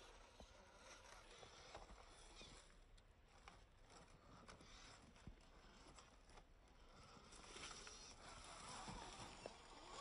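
Faint sounds of a small RC crawler working over rock and leaf litter: a soft noisy rustle with scattered light clicks and knocks from its tyres and chassis, growing a little louder near the end.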